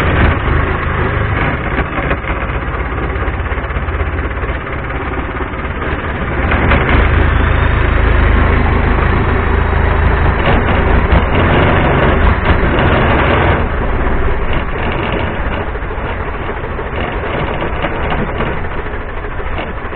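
Motorboat engine running steadily under way, with water rushing along the wooden hull; it grows louder for several seconds midway.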